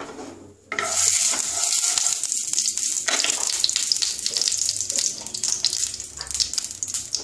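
Mustard oil sizzling and crackling in a hot non-stick kadai on a gas flame. It starts suddenly about a second in, then keeps up as a steady spitting hiss.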